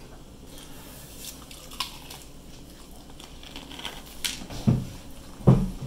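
Eating fried chicken at a table: quiet chewing with scattered small clicks and clatter of dishes, and two low thumps near the end.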